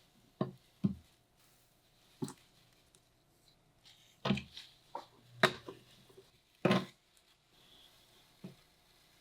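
About eight irregular knocks and taps from working in a glass aquarium while adding sand, the loudest pair about halfway through.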